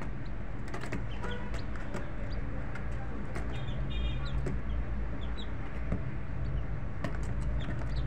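Chickens clucking, with a few short high chirps and scattered clicks over a steady low rumble.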